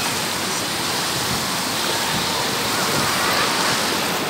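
Steady rush of small waves breaking and washing over a shallow sandy beach, with faint voices in the background.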